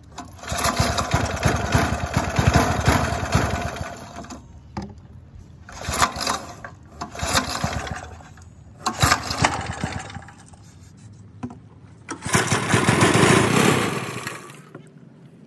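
Small go-kart engine being pull-started on a spray of carburetor cleaner with no gas in it: it fires and runs rough for a few seconds, dies, sputters in a few short bursts, then runs again briefly near the end before cutting out.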